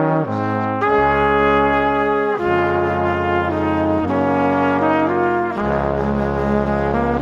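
Background music: slow, held brass-like chords that change every second or two.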